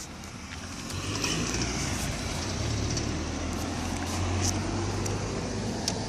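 Road traffic: a passing motor vehicle's engine and tyre noise swells up about a second in and holds steady before easing near the end, with a sharp click at the very end.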